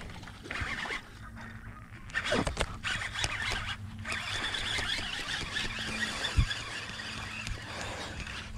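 A baitcasting reel being cranked to fight in a hooked bass, which splashes at the surface. It is a continuous fine whirring from about two seconds in, with a few clicks and a dull thump just after six seconds.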